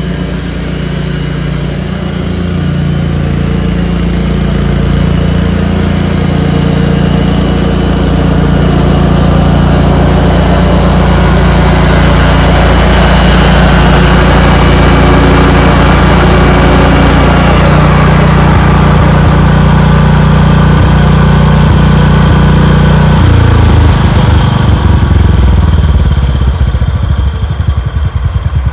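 Cub Cadet 106 garden tractor's single-cylinder Kohler engine running steadily at working speed while mowing grass. It grows louder over the first dozen seconds. Near the end the engine note drops and the sound eases.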